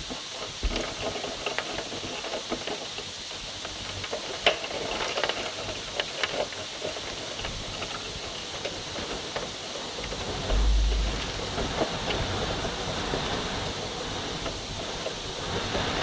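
Rain and wind of a tropical storm, a steady hiss with scattered sharp taps, and a low buffet of wind on the microphone about ten seconds in.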